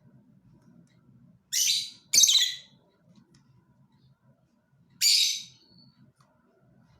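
Lovebird giving three shrill, harsh screeching calls: two in quick succession about a second and a half in, and one more about five seconds in.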